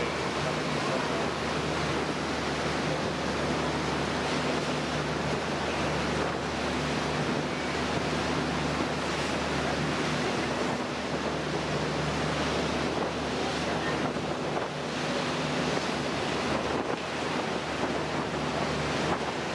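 Rushing, churning water of a motor boat's wake and wind buffeting the microphone, over the steady low hum of the boat's engine.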